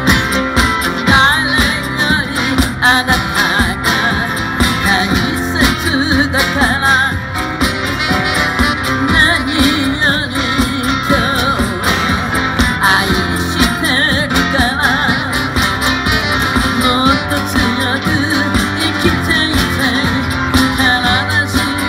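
Live band playing through a PA: a man singing lead over electric and acoustic guitars, keyboard, drums and saxophone.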